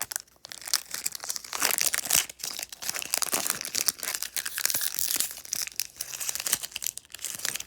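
Foil Pokémon booster pack wrapper crinkling and tearing as it is opened by hand, with many quick, irregular crackles.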